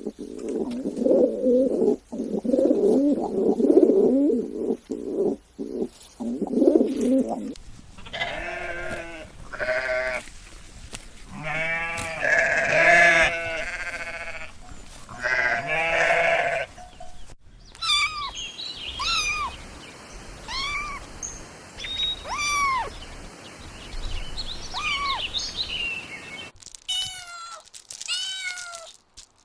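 Kittens meowing. First comes several seconds of low, drawn-out, wavering cries, then longer pitched meows. From just past halfway there is a series of short, high-pitched mews.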